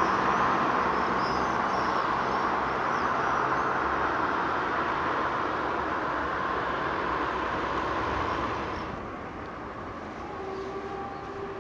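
Steady rushing noise of road traffic, easing off about nine seconds in.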